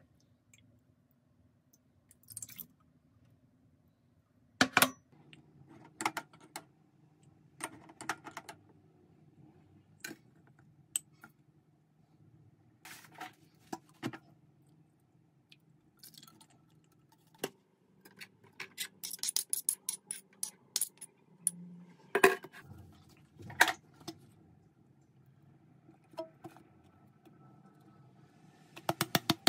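Kitchen handling while mixing a sauce: scattered clicks and knocks of a mug, bottles and a metal spoon against a melamine bowl and the counter. A quick run of light clinks comes past the middle, followed by two sharp knocks, the loudest in the stretch.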